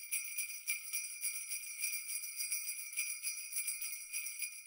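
Jingle bells shaken steadily in quick strokes, a bright continuous jingling.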